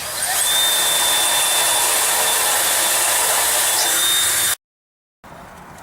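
Electric drill running steadily with a high whine while opening holes up to 3/16 inch for rivets. It cuts off suddenly about four and a half seconds in.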